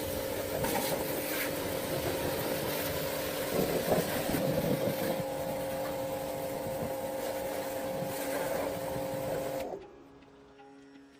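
A small machine or power tool runs steadily with a constant whine over a hissing noise, then cuts off suddenly near the end.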